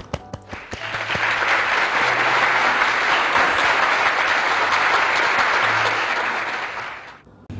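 Applause: a few separate claps, then dense, steady clapping that fades out about seven seconds in.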